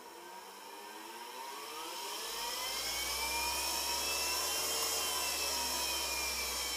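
DC electric motor on a bench test, run through its controller from 24 V of batteries by a hand throttle. It spins up with a rising whine over the first few seconds, holds speed, then eases off slightly near the end, with a low hum under it.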